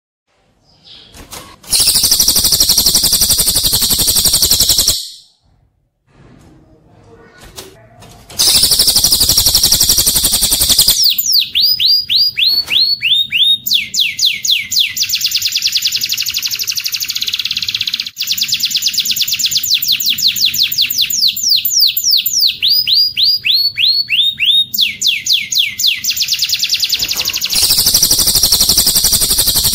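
Recorded songs of a cililin and a domestic canary played back to back as training song for cage birds. There are three high, dense, buzzing trills of about three seconds each, two near the start and one near the end. Between them comes a long canary song of fast trills and runs of quick downward-sliding notes.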